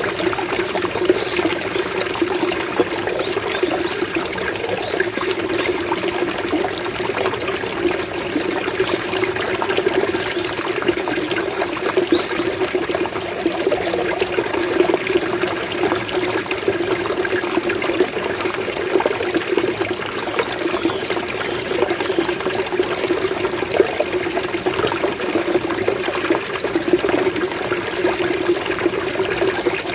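Flowing water gurgling steadily, a small stream of water bubbling over stones. A faint bird call rises briefly about twelve seconds in.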